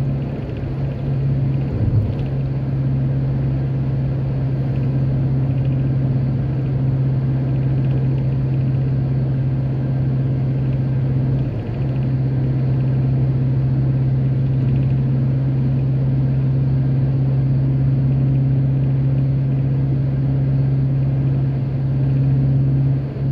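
Steady low drone of a car driving along, heard from inside the cabin: engine and road noise at a steady cruise, with brief dips about two seconds in and near the middle.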